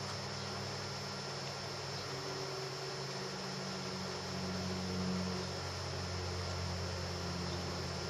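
Steady low electrical hum with an even hiss and a thin, steady high whine.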